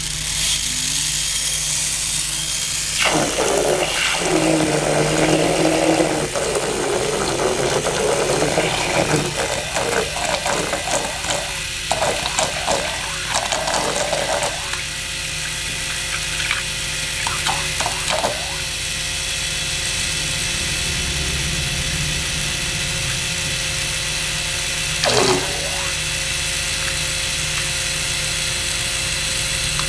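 Small 3 V DC motors driving a plastic gear train and a propeller on a 2 mm shaft, running with a steady high-pitched gear whine. The propeller churns and splashes water, loudest from about 3 to 15 seconds in, with a single short knock about 25 seconds in.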